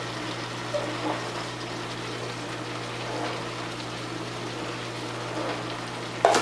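Onions, bell pepper and chicken sizzling steadily in hot canola oil in a nonstick stir-fry pan, a low even hiss, with a couple of soft taps about a second in and one sharp clack near the end.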